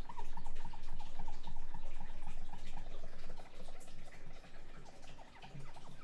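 A cloth being rubbed back and forth over the bare glass of a projector's LCD panel, a rapid run of short squeaks as it wipes off leftover polarizer adhesive loosened with acetone nail-polish remover. The rubbing is louder in the first half and fades after a few seconds.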